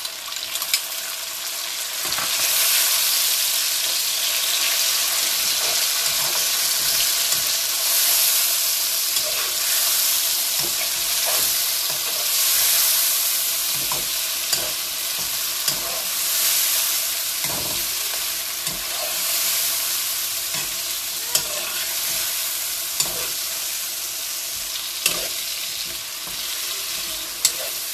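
Chopped tomatoes, onions and cumin sizzling in hot oil in a nonstick wok, stirred with a spatula, with a short sharp click of the spatula against the pan now and then.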